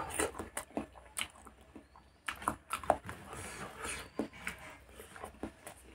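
Close-miked chewing of a mouthful of curry and rice: wet smacking and clicking mouth sounds at irregular intervals. Fingers squelch rice on the banana leaf as it is mixed.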